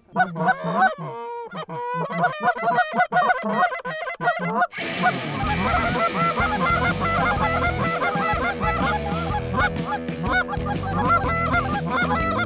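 Geese honking: a few short honks and clucks at first, then about five seconds in a dense chorus of many geese honking at once over a low rumble, with a hunter's goose call among them.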